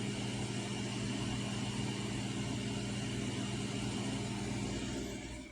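Kenmore refrigerator running with a steady electrical hum and a faint high whine. The hum fades out near the end.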